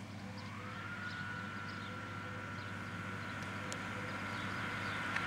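Pair of MÁV V43 electric locomotives approaching at the head of a passenger train: a steady high-pitched whine over a low hum, slowly growing louder. The whine rises in pitch within the first second.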